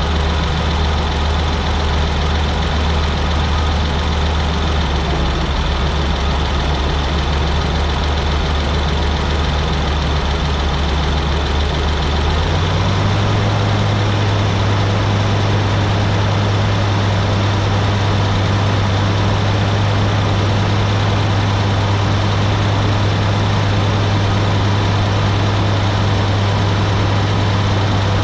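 Heavy farm machinery engine running steadily, its low hum stepping up to a higher pitch about twelve seconds in as the engine speed is raised.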